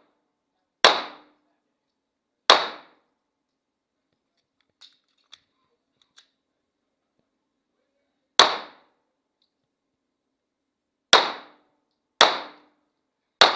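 Pistol shots fired at an irregular pace: two about a second and a half apart near the start, then after a pause of about six seconds four more, the last three a second or so apart.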